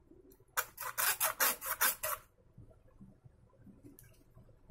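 A rapid run of about eight scraping strokes as a small metal hand tool is scrubbed back and forth over a desktop motherboard's RAM slot to clean it, lasting about a second and a half, followed by faint handling noises.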